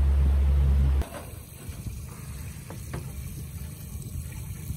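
A pontoon boat's motor running with a steady low hum, cutting off suddenly about a second in. After that only a quiet low background with a few faint knocks is left.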